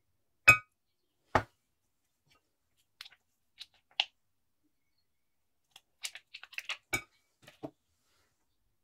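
Utensils knocking against a glass bowl of chopped pistachios: two sharp clinks about a second apart, the first with a brief ring. Then a spoon taps and scrapes through the nuts, with a quick run of small clicks near the end.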